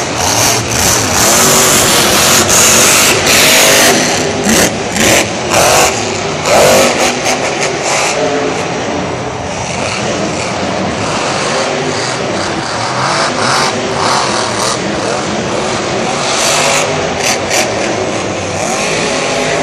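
Monster truck's supercharged engine revving hard in repeated loud surges as the truck drives over the dirt jumps, loudest in the first few seconds.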